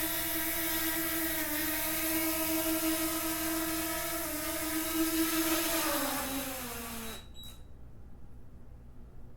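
DJI Mavic Mini 2 drone's propellers whining steadily, the pitch stepping down slightly twice, then falling over about a second as the motors spin down after landing and cutting off with a short click about seven seconds in.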